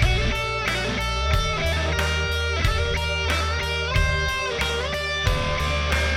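Rock band playing an instrumental passage: an electric guitar lead holds sustained notes with pitch bends and slides over a heavy bass line and steady drums.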